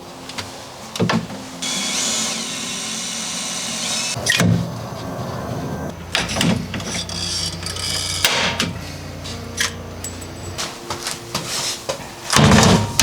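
A power drill running for a couple of seconds early on, drilling into the metal floor panels. Sharp knocks and clanks of work on the metal floor follow.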